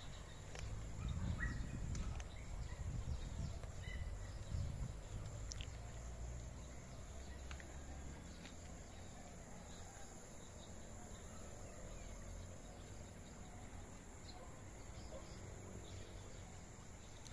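Faint outdoor ambience of insects and occasional short bird chirps, with a low rumble on the microphone during the first few seconds.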